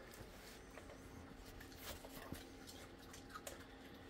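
Faint scattered clicks and crunches of a raccoon eating cookie crumbs off a wooden floor, over a faint steady hum.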